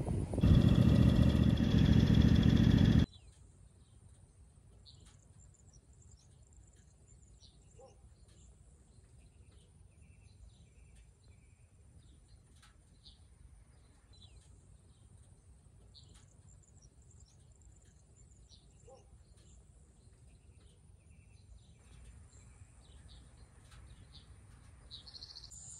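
A loud rush of wind-like noise for the first three seconds, cutting off abruptly. After that, quiet outdoor ambience with scattered faint bird chirps and a faint steady high insect drone.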